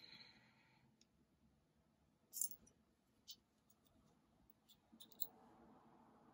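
A few faint metallic clicks as a hex screwdriver turns small screws into an aluminium handwheel hub, with a light rustle of handling near the end.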